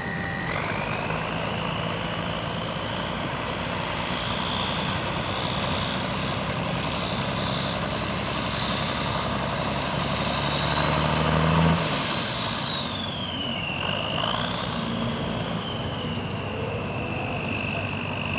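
REO M35A2 2½-ton truck's turbocharged multifuel six-cylinder engine running under load as the truck drives and tows. A high whine rises with the engine, peaks a little past halfway, then drops and holds steady as the deep engine note falls away.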